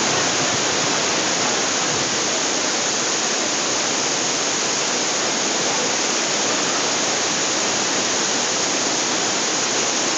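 Heavy fall of 3/8-inch hail: a loud, steady, dense hiss of hailstones striking the ground, grass and pavement, without letup.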